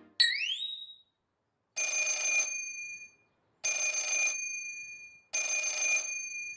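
A short rising swoop sounds at the very start. Then a cartoon telephone rings three times, each ring under a second long, with a pause of about a second between rings.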